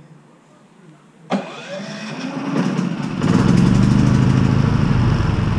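Onan Cummins P4500i inverter generator started by remote key fob: a sharp click about a second in, then the engine catches and its speed rises. It settles into a steady run about three seconds in.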